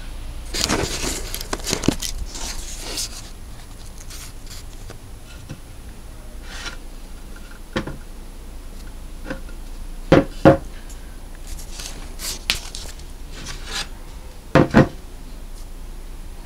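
Poplar-and-alder wooden cutting board being handled and turned over: rubbing and scraping for the first few seconds, then scattered knocks, with two quick double knocks, one about ten seconds in and one near the end.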